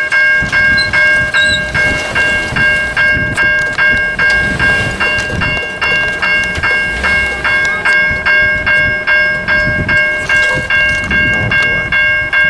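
Railroad crossing bell ringing steadily at about two to three strikes a second, each strike's tone ringing on into the next: the crossing warning that a train is approaching with the gates down. A low, uneven rumble runs underneath.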